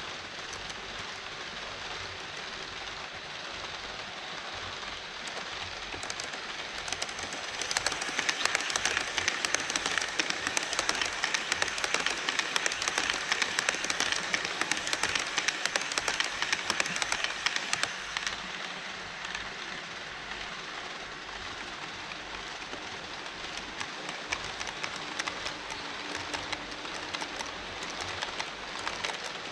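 HO scale model trains running over a model truss bridge: a steady whir of wheels and motors with rapid fine clicking of wheels over the track, louder for about ten seconds in the middle as a model E5 series Shinkansen passes on the near track.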